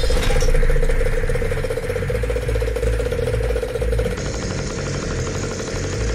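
A 60cc two-stroke chainsaw engine, fitted to a homemade three-wheel scooter, idling with a steady buzzing hum.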